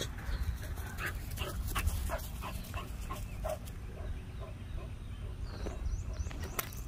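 A dog whimpering and giving short yips, repeatedly, over a low steady rumble of wind.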